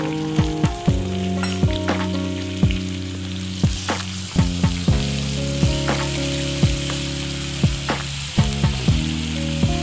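Chopped onions sizzling as they fry in hot oil in a steel kadai, stirred with a ladle. Under it runs instrumental music with held notes and a regular beat.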